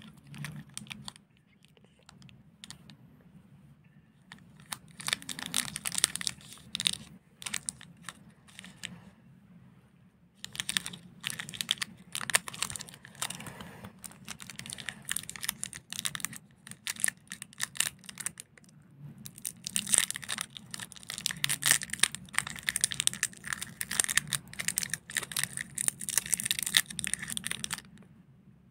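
Plastic candy wrappers being crinkled and torn open by hand: runs of quick crackling and rustling in several long bursts, with short quiet pauses between them.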